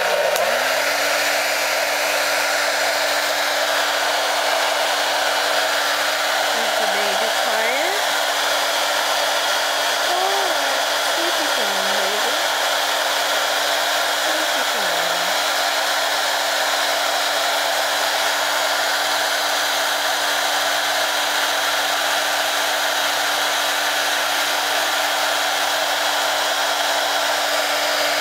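Handheld hair dryer switched on and running steadily, a hiss of blown air over a constant motor hum that rises to speed in the first moment.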